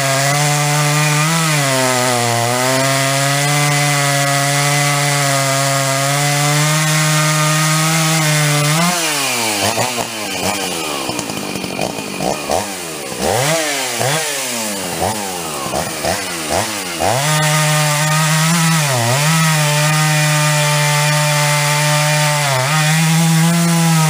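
Big-bore Jonsered chainsaw bucking a log under load, its engine holding a steady high pitch. From about nine seconds in, the revs swing up and down over and over for several seconds, then settle back to a steady pull with a couple of brief dips near the end.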